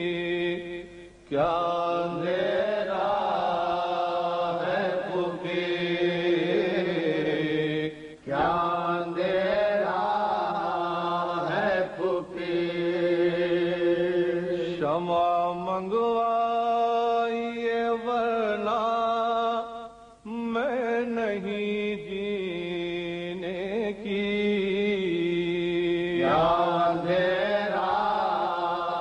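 Men's voices chanting a noha, a Shia mourning lament sung in Urdu, in long drawn-out phrases. There are brief pauses for breath about every five to seven seconds.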